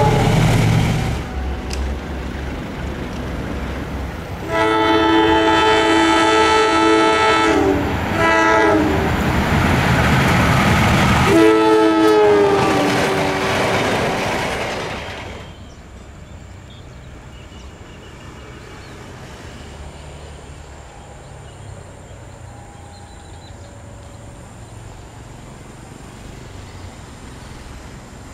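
KAI diesel locomotive sounding long warning horn blasts while its train passes at speed. The horn sounds at the very start, then one long blast about four seconds in, a short one, and a last blast that drops in pitch as the locomotive goes by, all over the loud rushing noise of the train. The train noise fades out about fifteen seconds in, leaving a faint steady background.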